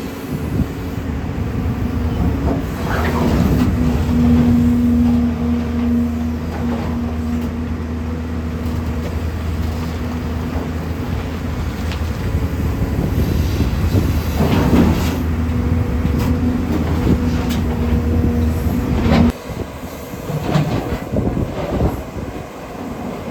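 JCB 245 HD LR long-reach excavator running steadily under load, its engine hum joined twice by a rising whine. About 19 seconds in the engine note drops away suddenly, leaving lighter knocks and scraping.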